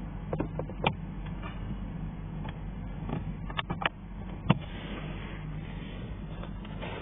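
Sharp plastic clicks and knocks from hands working the footwell trim and its plastic clips, a handful of them with the loudest about four and a half seconds in, over a steady low hum.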